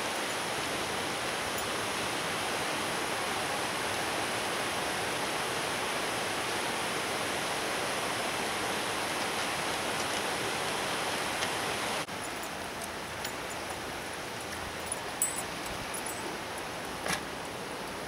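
Steady rush of flowing water from a creek below. About twelve seconds in it drops suddenly to a lower level, and a few light knocks of footsteps on a wooden boardwalk follow.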